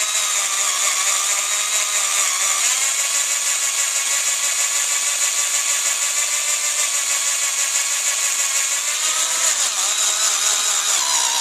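Cheap cordless drill running steadily, its diamond hole saw grinding into the brass of a rifle cartridge case lubricated with motor oil. The motor's whine holds fairly even, its pitch shifting slightly a couple of times.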